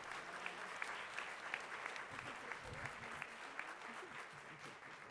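Audience applauding, a steady patter of many hands that thins out near the end.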